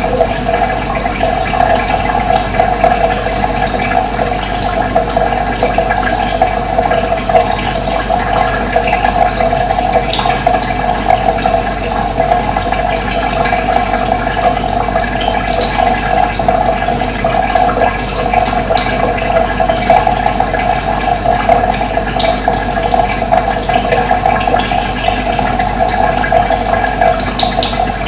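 Running water rushing steadily, with brief high bird chirps now and then.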